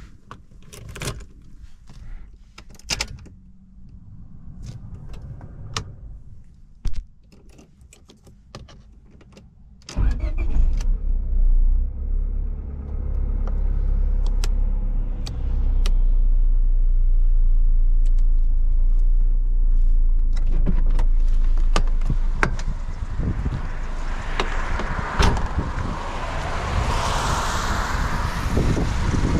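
A run of clicks and knocks inside the car, then about ten seconds in the Honda HR-V's 1.6-litre D16A four-cylinder engine starts and runs with a steady low rumble. A rushing noise builds over the last several seconds.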